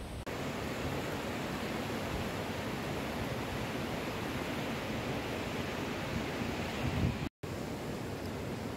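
Steady rushing noise of a fast mountain river, broken by a brief dropout about seven seconds in.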